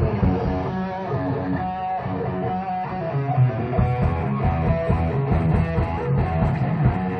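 Guitar-led rock music, playing continuously.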